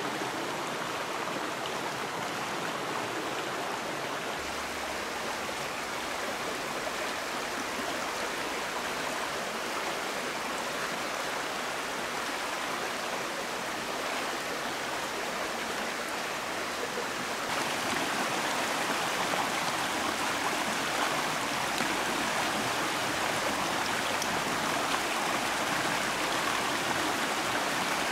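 Shallow river rushing steadily over rocks, a continuous watery hiss. It becomes louder and brighter about two-thirds of the way through.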